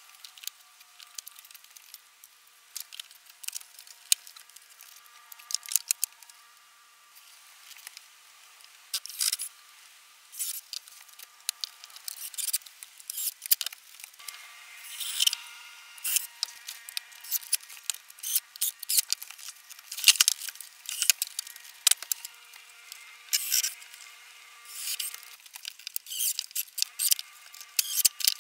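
Strips of heat-treated wooden sauna panelling clicking and knocking against each other as they are handled and fitted into a box frame: irregular sharp taps and clacks, busier after the first third.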